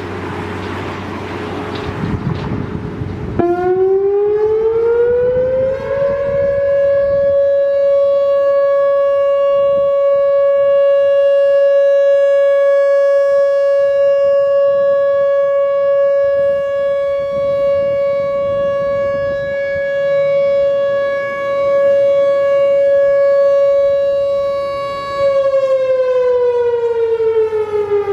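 Whelen WPS-4004 electronic outdoor warning siren sounding its steady alert tone. It starts about three seconds in, winds up in pitch, and holds a steady 560 Hz tone for about twenty seconds. It then begins to wind down near the end. Before it starts there is background noise with a low hum.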